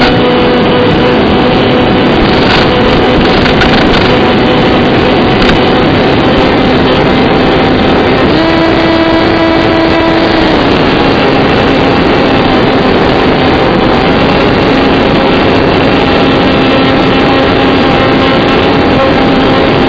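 Electric motor and propeller of an AR Wing flying wing running steadily with a droning hum over a rush of noise; the pitch steps up for about two seconds roughly eight seconds in, then settles back.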